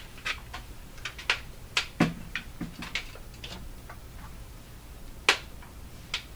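Irregular light clicks and taps, about a dozen in the first three seconds and two sharper ones later, from a kitten playing with the test leads hanging at the bench. A steady low hum runs underneath.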